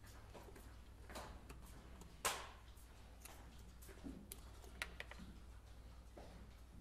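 Faint clicks and handling noises of a hard plastic speaker pod as a speaker is pulled out and its wiring unplugged, with one sharper click about two seconds in.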